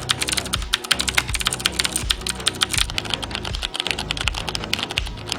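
Fast typing on a mechanical keyboard, a dense run of key clicks with no breaks, over background music.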